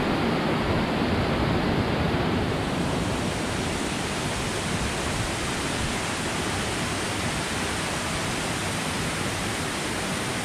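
Steady rushing of falling water from a waterfall: an even hiss that turns brighter about two and a half seconds in.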